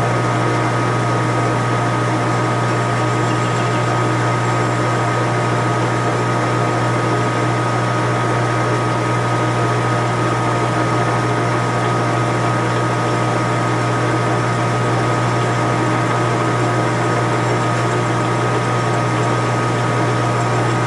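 Small lathe running steadily, a constant motor hum with a steady higher whine, while light passes are taken to turn the neck of a brass cartridge case.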